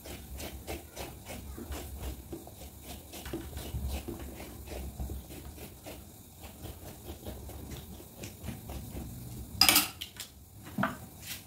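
Metal spoon scraping and scooping the last flesh from the inside of a half watermelon rind, a run of quick small scrapes. About ten seconds in, a louder clatter as the spoon is set down on the tray.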